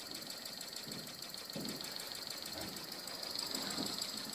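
PM Research mini double-acting oscillating steam engine running on compressed air, its exhaust chuffing in rapid, even beats over a steady hiss of air.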